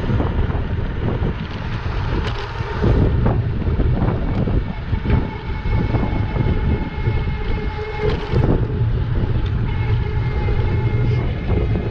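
Wind buffeting the microphone of a moving e-bike, with a faint steady whine from the electric motor from about five seconds in and a few light knocks from the bike.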